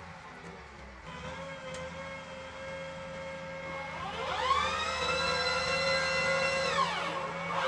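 M270 MLRS launcher loader module being raised, its drive giving a whine that rises in pitch about four seconds in, holds steady, then falls away and starts rising again near the end. Under it runs the steady sound of the vehicle's idling Cummins diesel engine.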